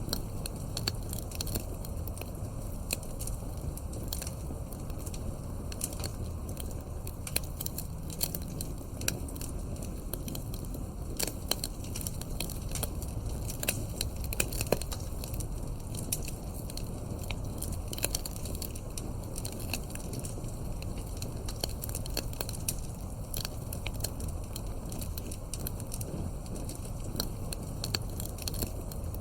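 Wood fire crackling steadily with frequent sharp pops and snaps over a low rumble of burning logs.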